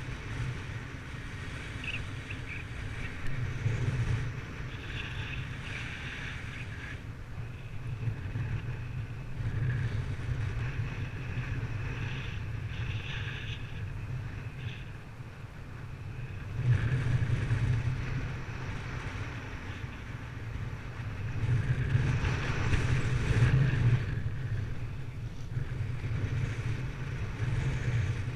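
Wind rushing and buffeting over the microphone in flight, a low rumble that swells in gusts several times.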